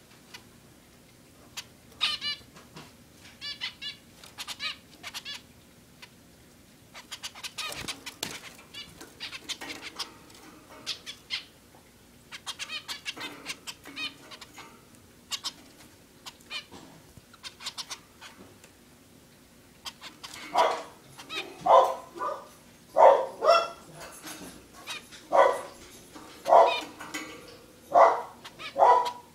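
Zebra finches calling: scattered short, high calls and quick chatter, then from about two-thirds of the way in a run of louder, lower single calls roughly one a second.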